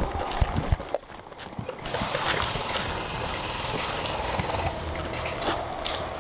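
Handling noise on a body-mounted action camera: a few sharp knocks and rubs in the first second as a camouflage sleeve brushes the camera, then steady rustling and rumbling of clothing and gear against the microphone as the airsoft player moves with his rifle.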